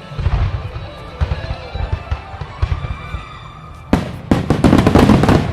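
Aerial fireworks bursting: a run of low booms, then, about four seconds in, a dense volley of sharp bangs and crackles, the loudest part.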